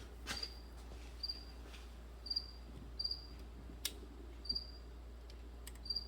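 A cricket chirping: short high chirps, one every half second to a second. A few sharp clicks of hand tools on metal come in between.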